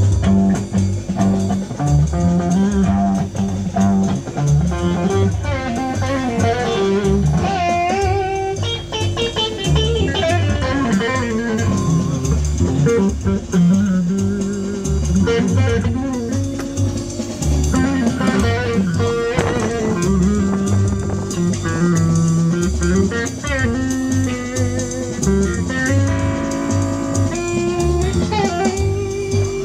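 Electric guitar playing lead lines with string bends over bass guitar and a drum kit: a rock band playing.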